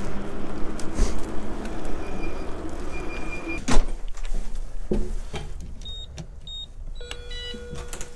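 Electric bike riding with road and wind noise and a brief high squeal, then a sharp clack as the ride ends. After that come short electronic beeps and a steady electronic tone from a building's door entry panel.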